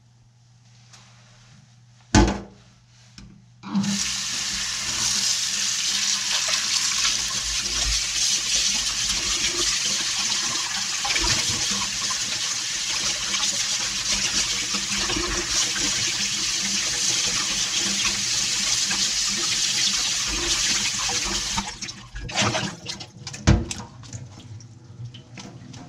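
Kitchen tap running steadily into a sink for about eighteen seconds, then shut off. A sharp knock comes shortly before the water starts, and drips, clinks and another knock follow once it stops.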